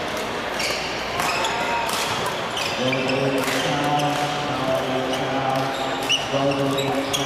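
Badminton rally: rackets striking the shuttlecock in a quick exchange of sharp hits, with sneakers squeaking on the court floor.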